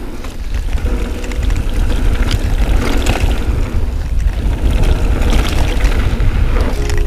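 Wind buffeting the microphone of a mountain bike's action camera as the bike rolls fast down a dirt trail, with the tyres crunching on the dirt and the bike rattling over bumps.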